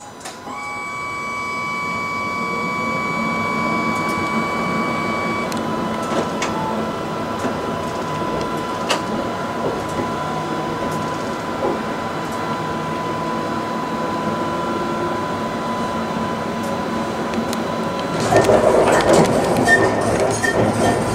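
Tram running on its tracks, heard from inside the driver's cab: a steady electrical whine over a constant rolling rumble. Near the end the wheel and rail noise grows louder and rattling.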